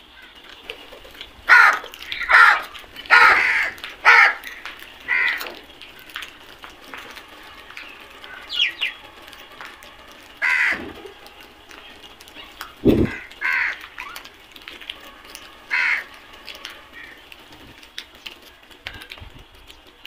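A flock of house crows cawing: a quick run of about five harsh caws in the first few seconds, then single caws every couple of seconds. A dull thump about two-thirds of the way through.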